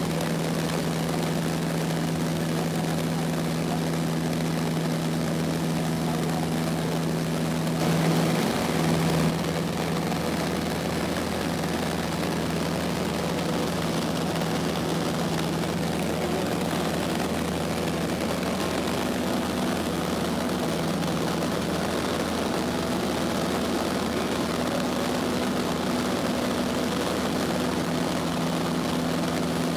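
Cabin noise of a Cessna 152 in flight: its four-cylinder Lycoming engine and propeller droning steadily under a broad rush of wind. The sound grows briefly louder and rougher about eight seconds in.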